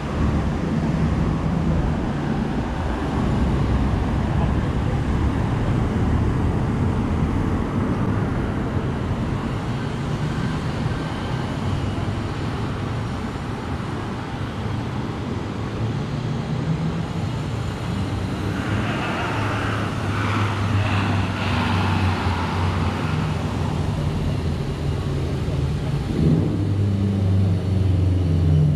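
City street traffic noise: a steady rumble of road vehicles, with a vehicle engine growing louder near the end.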